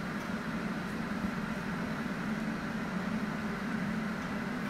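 Steady low hum with an even hiss, a kitchen appliance running without change.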